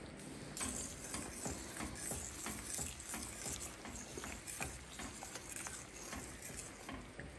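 Large uncovered pot boiling on the stove, with irregular bubbling pops and small ticks over a faint hiss.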